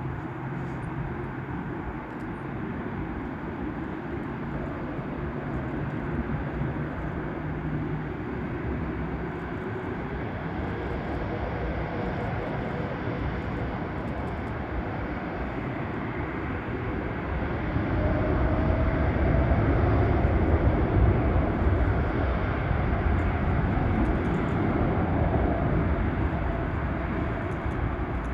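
Boeing 747 jet engines rumbling as the airliner rolls along the runway, with a faint whine that rises in pitch; the sound grows louder about 18 seconds in as the engines build thrust.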